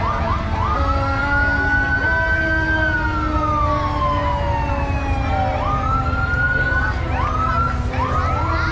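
Fire truck siren wailing. Its pitch climbs quickly, holds high, then slides slowly down, and it starts its climb again twice more. A low rumble runs underneath.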